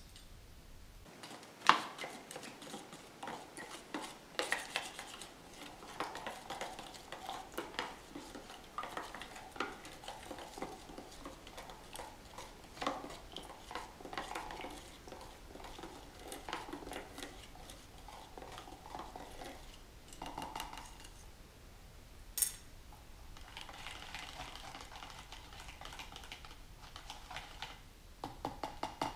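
Small stainless steel wire whisk stirring thick homemade chalk paint (paint, water and plaster of Paris) in a plastic tub: a continuous run of light scraping and ticking as the wires rub and knock against the container. A sharp tap stands out about two seconds in, with another about three-quarters of the way through.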